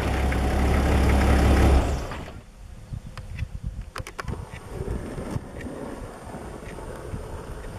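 Safari vehicle's engine idling steadily, heard up close at the front grille, cutting off about two seconds in. Afterwards quiet bush sound with a faint, steady, high-pitched insect buzz and a few scattered clicks.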